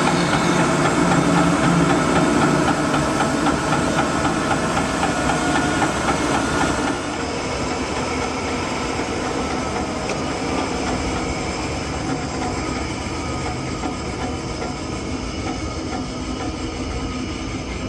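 Band sawmill running, its blade cutting through a walnut log on the first pass without striking any nails. The steady machine sound with a held whine steps down a little about seven seconds in.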